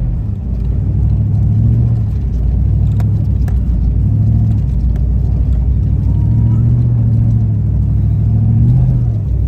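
Four-wheel-drive pickup truck driving slowly on an ice-covered gravel road, heard from inside the cab: the engine's low note rises and falls as it speeds up and eases off, over steady tyre and road noise, with a couple of sharp ticks about three seconds in.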